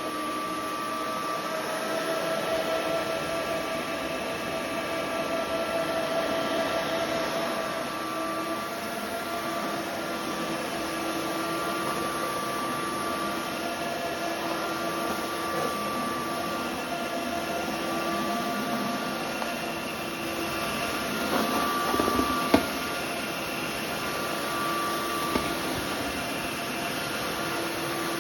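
Roborock F25 Ultra wet-dry floor vacuum running steadily: a motor whine over a hiss of suction, with a sharp knock about 22 seconds in.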